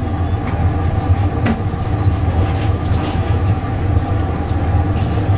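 Steady low hum of a glassworking furnace's burner and blower, with a few light clicks of metal tools against the glass.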